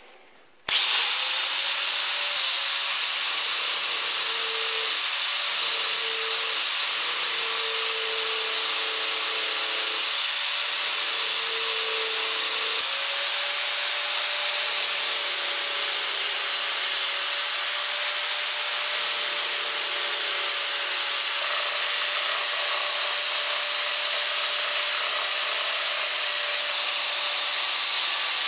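Angle grinder fitted with a home-made belt-sander (power file) attachment, switched on about a second in and then running steadily: a high motor whine over the hiss of the narrow abrasive belt sanding against the work.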